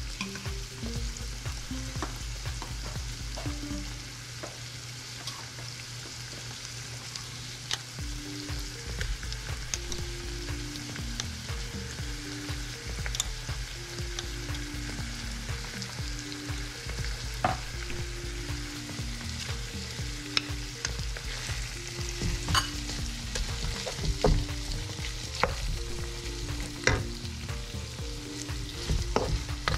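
Diced pork, onion and shrimp paste sizzling in a nonstick wok while a wooden spatula stirs and scrapes through them, with scattered sharp clicks of the spatula against the pan.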